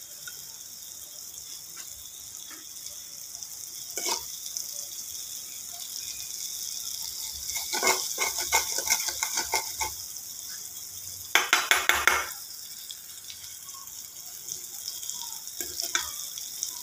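Food sizzling in a pan with a steady hiss. A utensil scrapes and stirs in a run of strokes about eight seconds in. A quick, louder rattling clatter of cookware follows a few seconds later.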